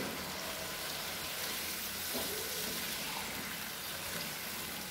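Green eggplant chunks frying in spicy chili balado sauce in a wok over high heat: a steady sizzle.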